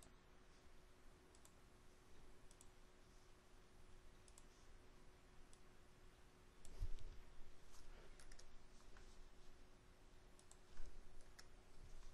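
Faint, scattered computer mouse clicks and key presses, a few of them louder, over a steady low hum.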